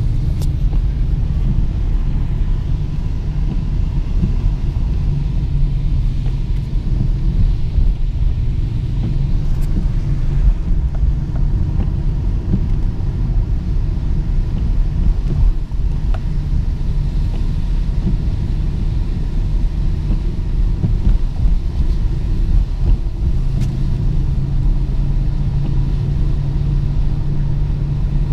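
Steady low rumble of a moving car heard from inside its cabin: engine and road noise while driving.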